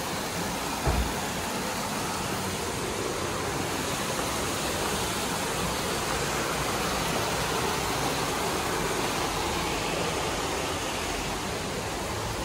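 Steady rush of water tumbling over the boulders of a rocky stream, with one brief low thump about a second in.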